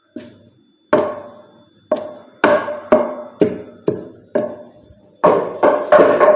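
Repeated hollow wooden knocks, each with a short ringing tone: a kitchen tool striking wood. They come about one a second at first, then faster and louder near the end, about three a second.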